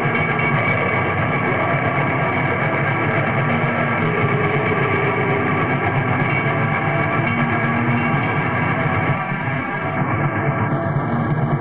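Raw, lo-fi black metal recording: a dense wall of distorted guitar, with a brief dip in loudness about nine seconds in.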